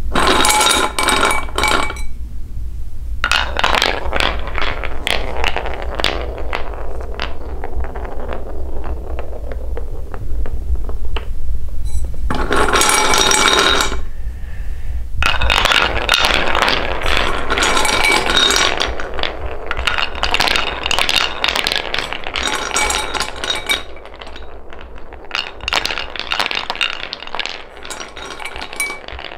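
Coloured balls rolling down a wooden spiral marble run: a continuous rolling rumble with a ringing tone at times, and many quick clacks as they strike the grooved track and one another. The clacks thin out near the end as the balls settle in a pile at the centre.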